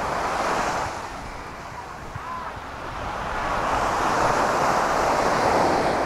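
Sea waves breaking and washing up a sandy beach: one wash fades in the first second or two, then the next wave swells and breaks through the second half.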